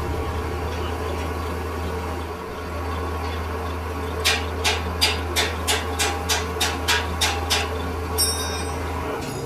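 Workshop machinery running with a steady low hum, with a run of about a dozen sharp knocks at roughly three a second through the middle and one more near the end.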